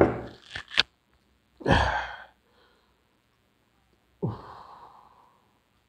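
A man breathing out hard and sighing after gulping down a glass of turmeric milk in one go: a short burst of breath with a couple of sharp clicks at the start, a loud breath out just under two seconds in, and a longer sigh about four seconds in that trails off.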